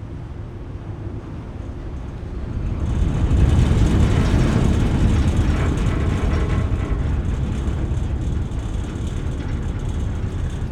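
A large 12,000 hp ferry's engines heard from the upper hold at the stern: a low idling rumble that, about three seconds in, swells louder and fuller as the engines throttle up and the propellers churn water for departure, then holds steady.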